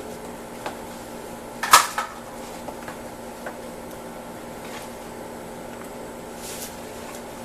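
Clicks and a clack of hand-tool and plastic door-panel handling during reassembly: one loud sharp clack just under two seconds in and a few lighter clicks, over a steady background hum.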